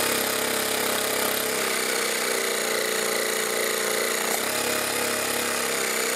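12-volt portable car tyre air compressor running steadily, its small electric motor and piston pump giving a continuous buzzing drone. Its hose outlet is blocked by a finger, so it is working against rising back-pressure.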